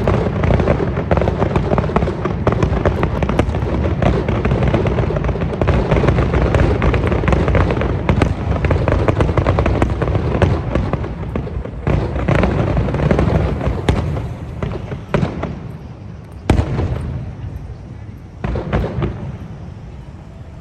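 Aerial fireworks going off in a dense barrage of booms and crackling. About fifteen seconds in it thins to a few separate bangs, then dies away near the end.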